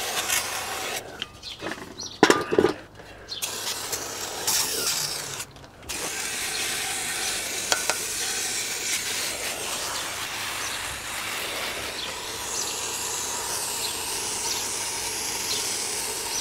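Aerosol can of brake cleaner spraying into an engine crankcase to flush it out. There are short hissing bursts with a couple of knocks about two seconds in, then one long, steady hiss from about six seconds in.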